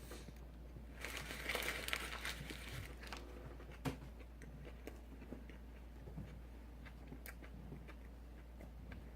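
Close-up eating sounds from a fast-food meal: a crinkling, crunching burst lasting about two seconds, starting about a second in, then scattered small clicks and mouth sounds.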